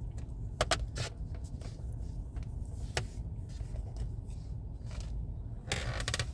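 Steady low rumble of a car's interior, with a few sharp clicks and a brief rustle near the end.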